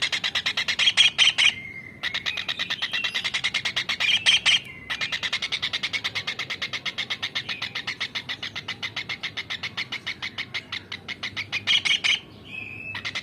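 Kingfisher (tengkek udang) calling: a rapid, even run of sharp high chips, broken by two short pauses and again near the end. During the pauses a thin steady whistle is held.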